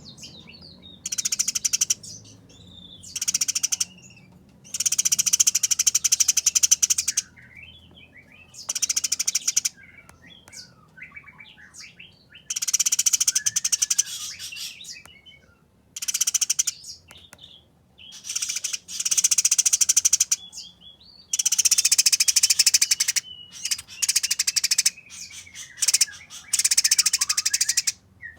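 Eurasian tree sparrow giving fast, harsh chattering fighting calls, about ten bursts of a second or two each. Thinner chirps and short gliding whistles fall between the bursts.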